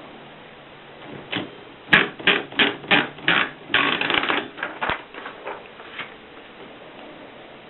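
Keys of a Japy Script manual typewriter being struck: a run of sharp clacks, about three a second, with a quick flurry in the middle, thinning out a second or so later.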